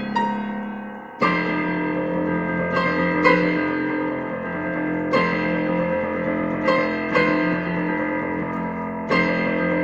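Slow piano music: chords struck every second or two and left to ring and fade.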